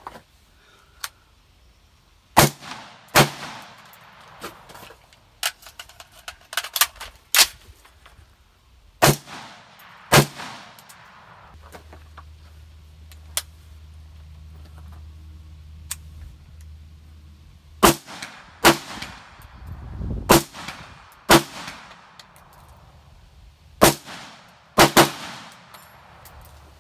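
Gunshots: about a dozen sharp reports at irregular intervals, some in quick pairs, each trailing a short echo.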